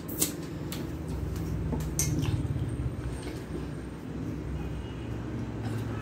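Eating by hand: wet chewing and lip smacks, then fingers mixing rice in a steel plate, with sharp clicks in the first two seconds. A steady low rumble underneath swells about two seconds in.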